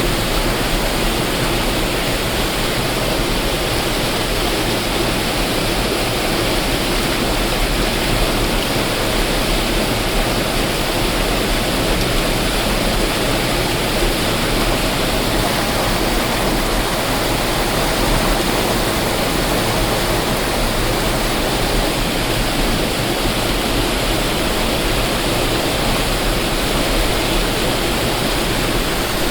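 Waterfall: a steady, loud rush of falling water that holds even throughout.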